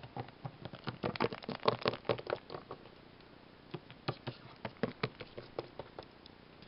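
Small plastic toy figurines being handled and set down, a run of irregular light clicks and taps.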